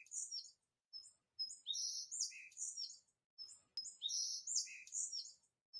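Birds chirping: short, high chirps in scattered clusters with brief silences between, as a forest ambience.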